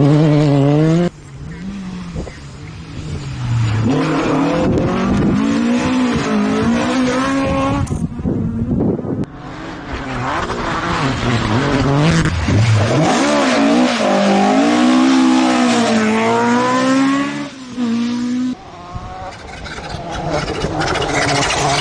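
Rally cars driven flat out on a stage, engines revving high and falling away through gear changes and braking. Several short passes follow one another, each starting or cutting off abruptly.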